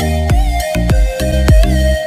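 Electronic dance music with heavy, pitch-dropping bass hits on a steady beat of about three a second, under a held synth melody.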